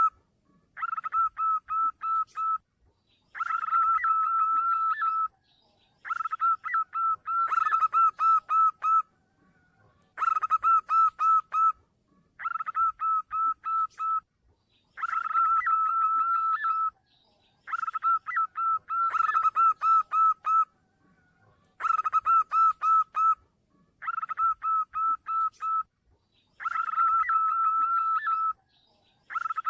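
Zebra dove (perkutut) singing: phrases of quick, repeated ringing coo notes, each about two seconds long, one every two to three seconds with short pauses between.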